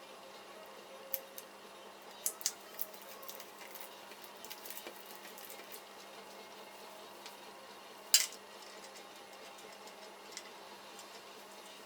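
Scattered light clicks and taps of small hard objects being handled, with one sharper click about eight seconds in the loudest, over a faint steady hum.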